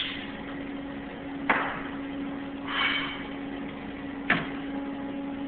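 Workpieces being taken out of a CNC mill's vise: two sharp metal knocks, about a second and a half and four seconds in, and a brief hiss near the middle, over a steady machine hum.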